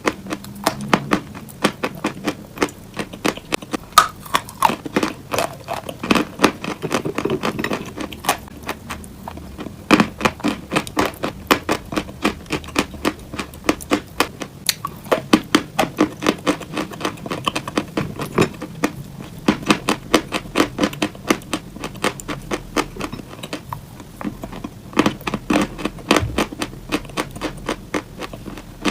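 Close-miked ASMR fake-eating crunching: rapid sharp crackles and clicks, several a second, imitating bites into crunchy cupcakes.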